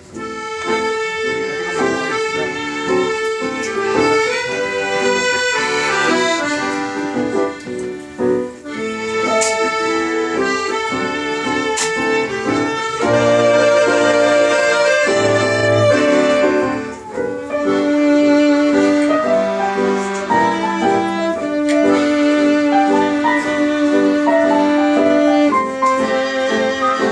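Music with an accordion playing a melody of held notes.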